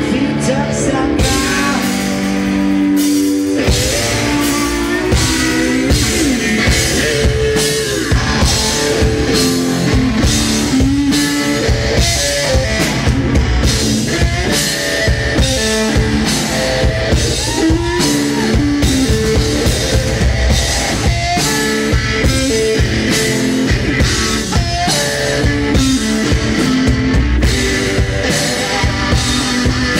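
A two-piece rock band playing live: loud electric guitar riffing over a pounding drum kit.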